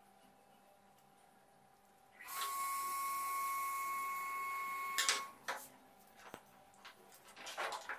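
A small electric screwdriver motor runs steadily with a high whine for about three seconds, driving a screw into a round plastic lamp fitting. It stops with a couple of sharp clicks, followed by light clatter of parts being handled on the bench.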